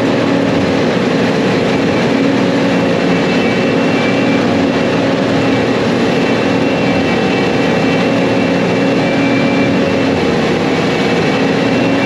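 Heavy harvest machinery running steadily: a deep, even engine drone with a faint high whine over it.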